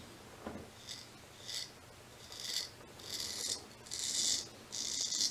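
A straight razor scraping through lathered stubble on the cheek, in a series of about six short strokes that grow longer toward the end.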